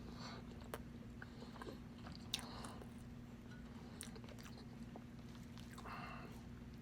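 Close-miked chewing and biting of spicy pork adobo: soft mouth clicks and smacks, with the sharpest click about two and a half seconds in, over a steady low hum.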